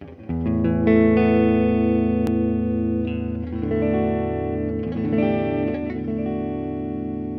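Electric guitar, a Squier Stratocaster played through a Peavey BackStage Plus amp, strumming chords and letting them ring, with new chords struck about three and five seconds in. There is a brief sharp click a little after two seconds.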